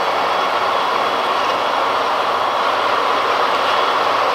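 Steady, loud mechanical rushing drone from the berthing car ferry Akashia's engines and machinery, unbroken and even in pitch.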